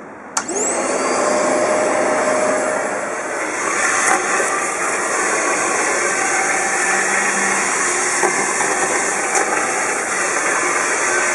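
A large cyclone vacuum cleaner switched on with a click, its motor whine rising quickly as it spins up, then running steadily at full suction with a few brief knocks.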